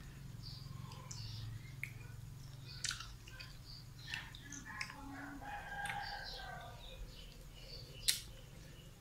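Chickens faint in the background: a rooster crowing and hens clucking among short chirps, over a low steady hum. A sharp click comes about eight seconds in.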